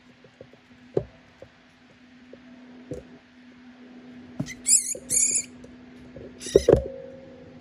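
Baby rat giving three high, warbling distress squeals, starting about four and a half seconds in, as a ball python strikes and coils around it; a thump of the strike goes with the last squeal. Scattered soft knocks and a steady low hum lie underneath.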